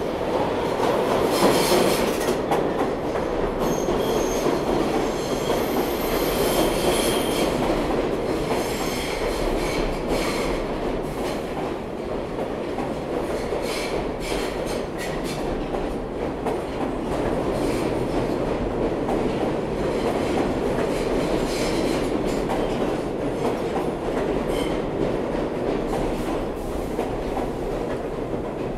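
New York City subway train running through a station: a steady rumble of wheels on rail, with a brief high wheel squeal a few seconds in and a run of rail-joint clicks after it.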